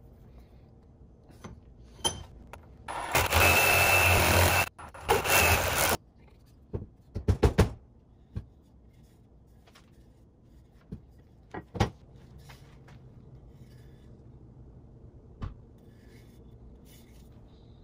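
Work on a wooden axe handle at a bench: two loud bursts of hissing, scraping noise, then a quick run of sharp knocks of wood on a wooden workbench and a few scattered single knocks.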